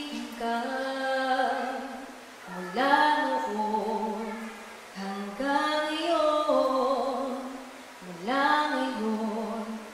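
A woman singing solo into a microphone, slow and unaccompanied, in phrases that each end on a long held note with slight vibrato.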